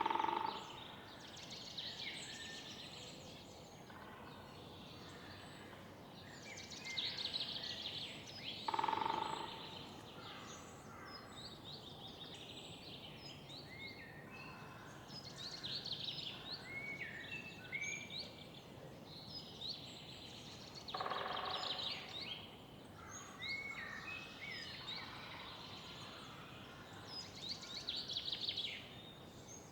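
Many songbirds chirping and trilling in a city park morning chorus, with louder harsh calls near the start, about nine seconds in and about twenty-one seconds in, over a steady low background of city noise.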